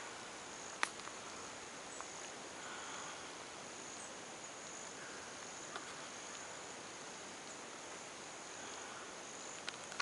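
Faint, steady high-pitched insect trill over quiet woodland background, with a few light clicks, one about a second in and another near the end.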